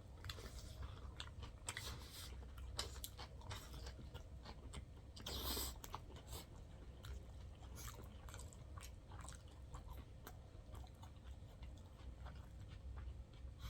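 Close-up mouth sounds of chewing a big cheeseburger: soft wet clicks and small crunches, with a brief louder rustling squelch about five and a half seconds in.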